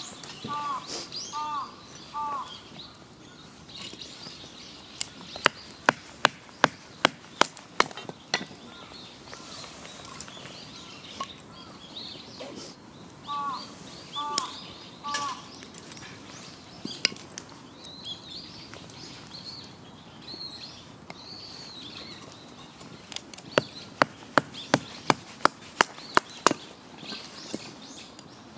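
Two quick runs of sharp chopping knocks, about ten each at a few a second. Birds call throughout, with a bird's repeated short calls near the start and in the middle.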